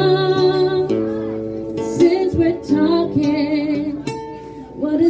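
A woman singing over an acoustic guitar accompaniment, with vibrato on her held notes.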